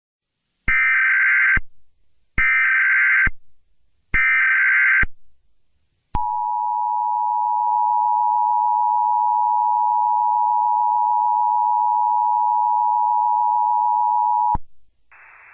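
Emergency Alert System opening sequence: three short bursts of the SAME digital header tones, about a second and a half apart, followed by the two-tone EAS attention signal held steady for about eight seconds before it cuts off.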